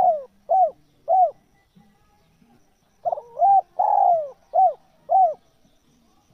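Spotted dove cooing: the last three coos of one phrase in the first second or so, then after a pause a full phrase of about six coos, one of them longer and falling in pitch.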